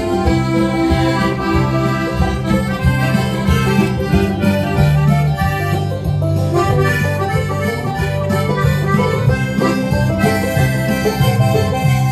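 A live band playing an instrumental passage of a Cajun-style song, accordion in the lead over guitar and a steady beat.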